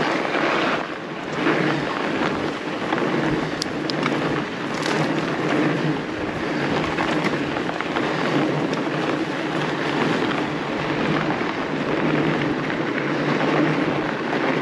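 Fat bike rolling along a packed snow trail, picked up by a handlebar-mounted camera: a steady rumbling hiss from the wide tyres on the snow, with a few sharp clicks.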